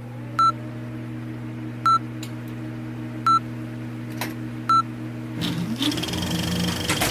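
Old-film countdown leader sound effect: four short, high beeps about a second and a half apart over a steady low hum. About five and a half seconds in, a rising sweep and hiss take over.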